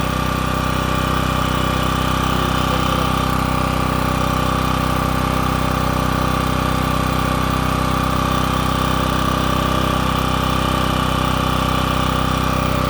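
Champion portable generator's engine running at a steady, constant speed.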